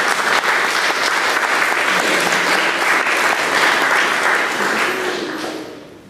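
Audience applauding, fading away about five and a half seconds in.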